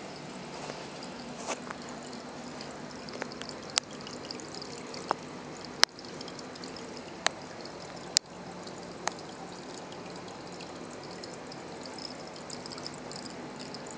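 Water trickling and splashing steadily in a small aquaponics system, the flow between the grow bed and the 10-gallon fish tank. Several sharp clicks are scattered through the first ten seconds, the loudest two near the middle.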